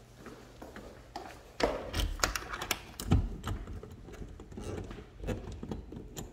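A key being worked in a French door's lock: a run of irregular sharp metallic clicks and knocks, starting about a second and a half in.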